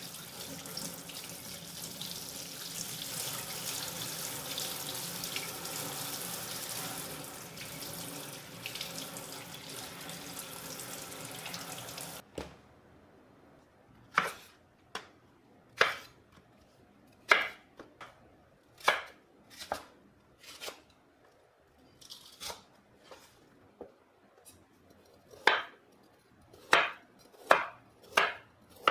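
Kitchen tap spraying water onto a potato being rinsed in a stainless steel sink, a steady rush that cuts off about twelve seconds in. Then a kitchen knife chopping vegetables on a cutting board, separate sharp knocks roughly once a second, the loudest coming near the end as a carrot is sliced.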